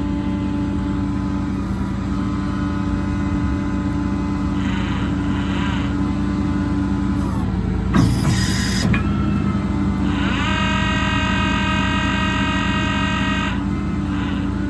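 A service-truck crane being worked by remote over the truck's steadily running diesel engine. A short hiss comes about eight seconds in. About ten seconds in, a whine rises in pitch, holds for about three seconds and stops as a crane function runs.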